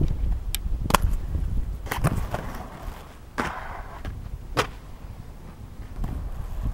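Inline skates on concrete skatepark ramps: a low rumble of wheels rolling, broken by about half a dozen sharp clacks of skates landing and striking the concrete, the loudest about a second in and near four and a half seconds in.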